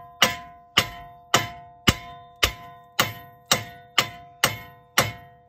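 Hand sledgehammer striking a snapped wheel stud to drive it out of a Nissan 350Z's wheel hub. Steady blows, a little under two a second, each leaving the steel hub ringing with a clear metallic tone.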